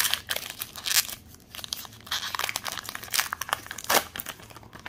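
Foil wrapper of a baseball card pack being torn open and crinkled by hand. The crackling is irregular, with sharper rips about a second in and near the end.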